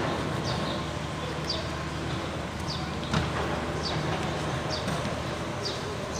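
Street ambience: a steady low hum of traffic, with a small bird giving short falling chirps about once a second. A single sharp knock sounds about three seconds in.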